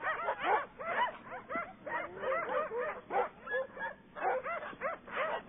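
A sled dog team yipping and barking, many dogs at once in quick, overlapping yelps that rise and fall in pitch: the clamour of a team waiting to run.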